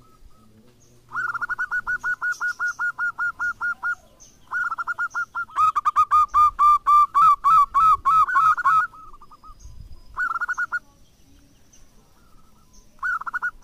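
Zebra dove (perkutut) singing: runs of rapid staccato cooing notes, about six a second. There are two long runs of three to four seconds, the second one louder, then two short bursts near the end.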